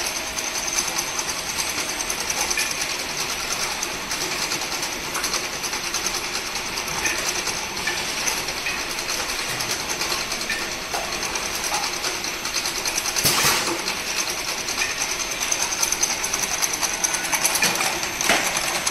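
Vacuum leak tester running: a steady mechanical noise with a fast, fine rattle, with a sharp click about thirteen seconds in and another near the end.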